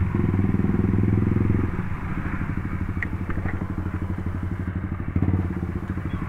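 Single-cylinder motorcycle engine running while riding, its exhaust pulsing steadily; the note eases off about two seconds in.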